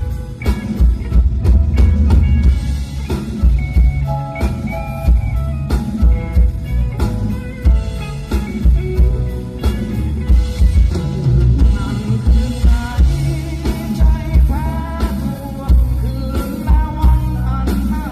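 Rock band music: a steady drum kit beat and bass under a melodic lead line, with electric guitar.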